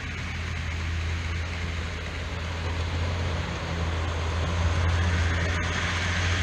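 OO gauge model train running along the layout's track: a steady low hum with a rolling rush over it, growing gradually louder as the train draws near.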